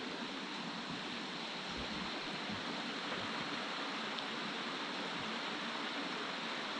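Rushing water of a creek or waterfall, a steady, even rush.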